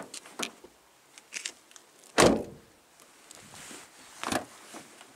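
Toyota Wish car door being worked by its outer handle: a latch click as the handle is pulled, a heavier thud of the door shutting about two seconds in, and another latch click a little after four seconds. The reviewer finds the door bouncy and low in quality feel when shut.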